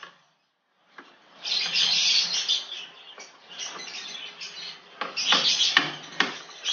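Birds chirping steadily, with several sharp metallic clinks from hand tools working on the motorcycle engine's mounting bolts about five to six seconds in. The sound drops out almost completely for the first second.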